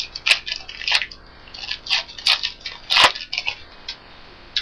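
A baseball card pack's wrapper crinkling and tearing as it is opened, in a run of irregular sharp crackles.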